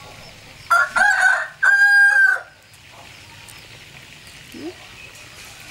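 A rooster crowing once, about a second in: a few short broken notes, then one long held note.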